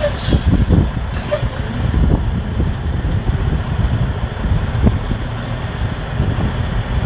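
Semi truck's diesel engine running at low speed while manoeuvring into a parking space, under a gusty low rumble that is typical of wind on the microphone. Two short hisses come within the first second and a half.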